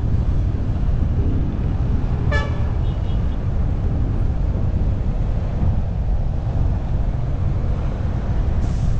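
Steady low rumble of wind and road traffic while cycling, with a vehicle horn giving one short toot about two seconds in.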